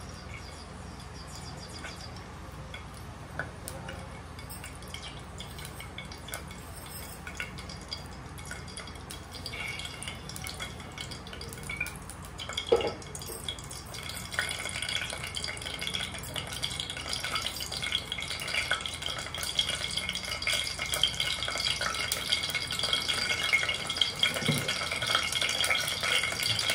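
Bay leaf sizzling in cooking oil heating in a pressure cooker, a fine crackle that grows steadily louder from about halfway as the oil gets hot. A single sharp knock about halfway through.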